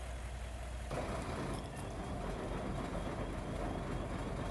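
Steady engine rumble of a fire engine. About a second in it becomes louder and rougher, with added hiss.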